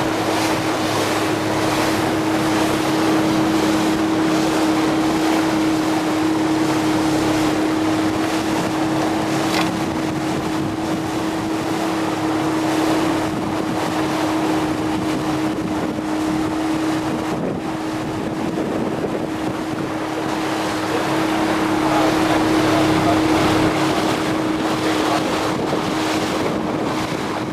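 Small runabout boat's motor running steadily under way, one constant engine drone, with wind buffeting the microphone and the rush of water.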